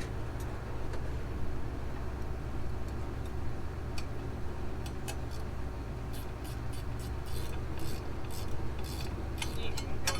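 Hand tools clinking on metal and a ratchet wrench clicking in short runs, working loose the fittings of a burst hydraulic hose. A steady low hum runs underneath.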